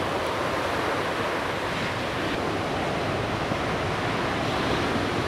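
Ocean surf: a steady rush of breaking waves and whitewater, with no single crash standing out.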